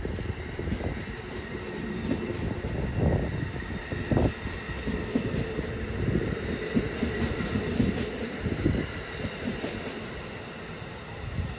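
Amtrak Northeast Regional's stainless-steel Amfleet coaches rolling past: a steady rumble of wheels with rapid clacks and thumps from the trucks over the rail, and a faint steady wheel whine. It grows a little quieter near the end as the last car goes by.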